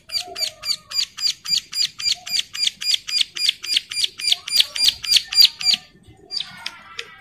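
Caged prinia (ciblek) in breeding condition calling: a fast, even series of sharp, high, repeated notes at about five a second, stopping about six seconds in. A short jumbled twitter follows near the end.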